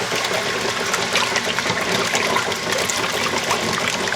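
1993 Kenmore 80 Series washer draining: the drain pump hums steadily while water gushes and splashes out of the drain hose, flushing dirt out of the pump.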